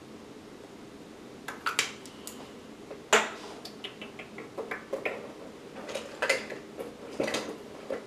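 Makeup containers and brushes clicking and clattering against a bathroom counter as they are picked up and set down: a run of irregular sharp knocks that starts about a second and a half in.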